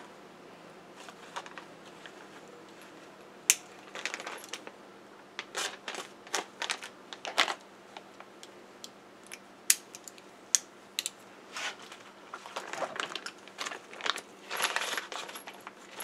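Small metal grinding-wheel adapter bushings clinking and tapping against each other as they are handled and sorted, in irregular light clicks with a brief metallic ring.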